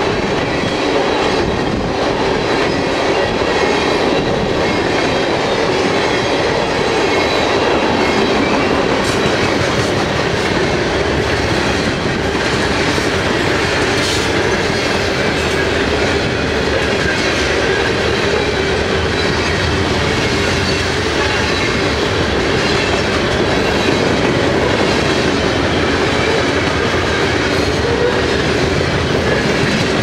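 Freight train's tank cars and covered hoppers rolling past close by: a steady rumble with the clickety-clack of steel wheels over the rails.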